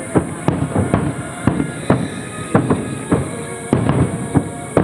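Distant aerial fireworks in a rapid starmine barrage: a quick series of bangs, about two or three a second, each trailing off in an echo. Music plays along underneath.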